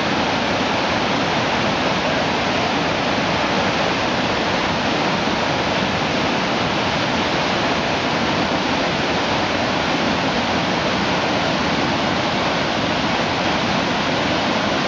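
Loud, steady rush of whitewater rapids of the Maligne River pouring through the narrow canyon, unchanging throughout.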